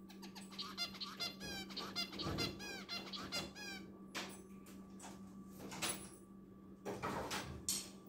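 Zebra finch song: a quick run of short repeated nasal chirps, each bending in pitch, for the first three and a half seconds. After that come a few short harsh scratchy notes.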